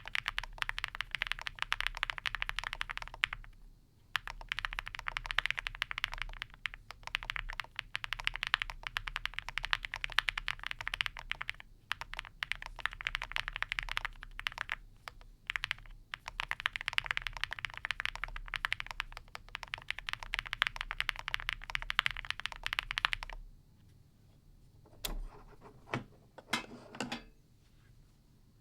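Typing on an Owlab Spring mechanical keyboard with lubed and filmed Harimau tactile switches, an aluminum plate and Cherry-profile keycaps: fast, continuous keystrokes with a short pause about four seconds in. Near the end the typing stops and only a few single key presses are heard, some of them deeper.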